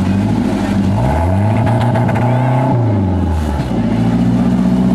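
Tour boat's engine running, revving up about a second in, holding, then dropping back to idle a little after three seconds.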